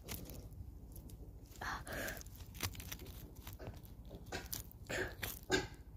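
Wet mud squelching, with small twigs crackling, as a plastic toy dog figure is pushed and pulled through it by hand. The sounds come in short, irregular bits, a little louder about two seconds in and again near the end.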